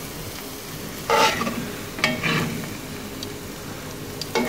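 Tomato sauce simmering and sizzling in a hot cast-iron skillet, with metal tongs scraping through the pan and against the plate, loudest twice, about one and two seconds in, then a few light clicks.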